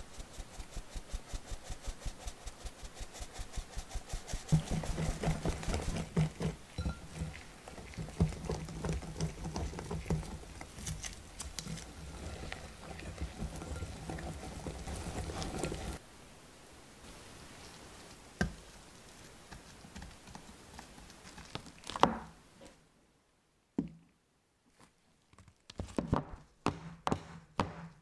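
Flour sifted through a fine mesh sieve over a glass mixing bowl, the sieve rim tapped about four times a second; then a spatula folding the flour into the carrot batter with denser, louder strokes against the glass. Near the end, a string of sharp knocks and taps.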